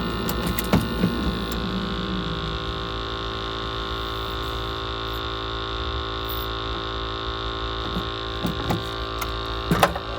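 Glow-worm Flexicom gas boiler firing at maximum rate: a steady hum from the fan and burner, holding one even pitch. A few light knocks from handling come about a second in and again near the end.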